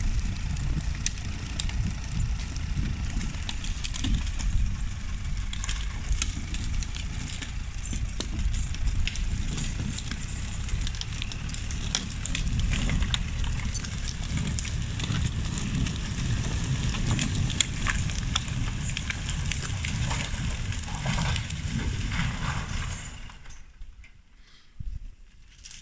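LKT forestry skidder's diesel engine running under load, a heavy low rumble with frequent crackles and snaps from the logs and brush it is dragging. The sound drops away sharply about 23 seconds in.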